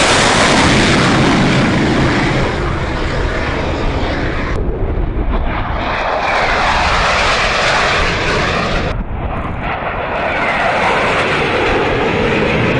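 F/A-18 Hornet jet engines running loud, first as one launches off the carrier deck, then as a formation of three passes overhead. The sound changes abruptly twice where the shots are cut together.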